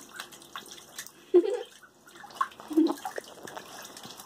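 Ducklings paddling and dabbling in shallow bathtub water: small splashes, drips and clicks, with two short louder sounds about a second and a half and three seconds in.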